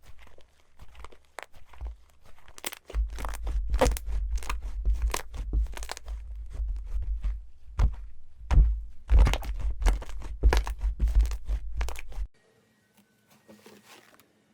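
Hands working slime close to the microphone: a dense run of crackling pops and clicks over low handling thumps. It cuts off suddenly about twelve seconds in, leaving only faint sound.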